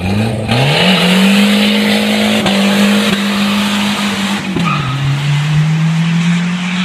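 Ford Thunderbird Turbo Coupe's turbocharged 2.3-litre four-cylinder revving up and held at high revs as the car launches with its rear tyres spinning and squealing. The engine pitch drops to a lower steady note about four and a half seconds in, at a gear change.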